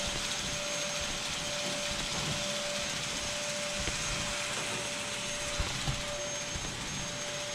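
Steady rushing noise of a running motor or fan, with a constant hum tone through it and a couple of faint knocks about two-thirds of the way in.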